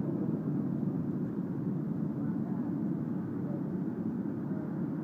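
Steady low mechanical rumble of running equipment, unchanging throughout.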